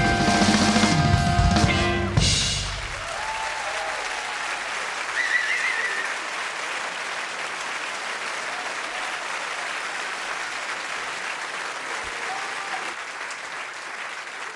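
A blues band with piano, saxophones, trumpet, bass guitar and drums plays its closing bars and ends on a final hit about two seconds in. An audience applauds from then on, fading slowly toward the end.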